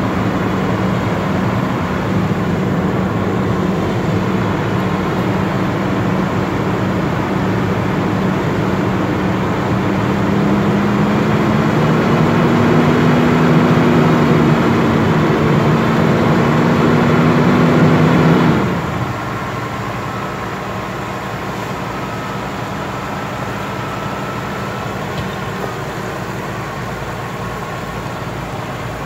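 Fire truck engine running fast and steady, its pitch rising slightly about ten seconds in, then dropping sharply about two-thirds of the way through to a quieter, lower hum.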